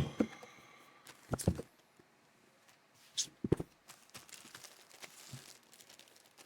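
Camera box and packing material being handled: a few soft knocks and clicks, with light rustling of paper or plastic between them.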